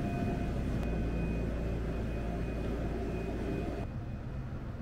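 Steady low rumble with a faint steady hum over it, changing and dropping slightly about four seconds in.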